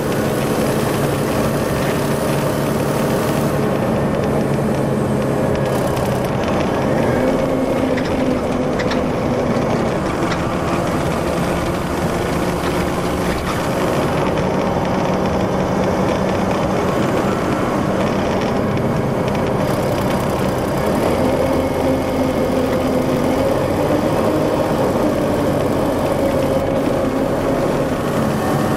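Detroit Diesel Series 60 inline-six diesel engine of an MCI D4500 commuter coach running steadily, its pitch rising and falling back twice as the engine speed changes.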